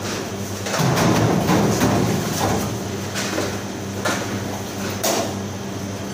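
Steady machine hum of commercial kitchen equipment, fridges and extraction, with a louder rush of noise about a second in and a couple of sharp knocks near the end.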